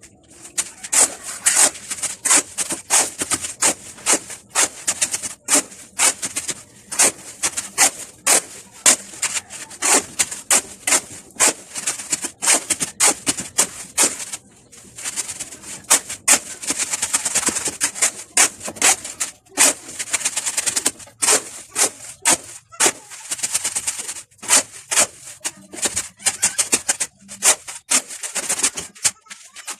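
Hand tools working construction material: sharp strikes and scrapes, about two to three a second, with a few longer scraping stretches in the middle.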